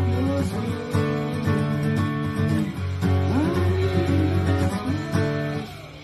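Acoustic guitar being strummed, with a voice gliding up and down in pitch over the chords. The playing fades out near the end.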